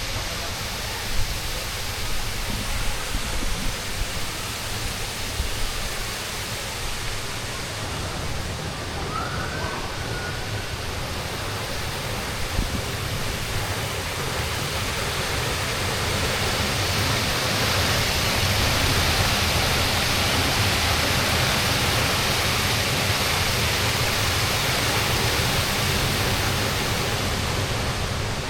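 Steady rush of water, which swells and grows louder about halfway through and holds.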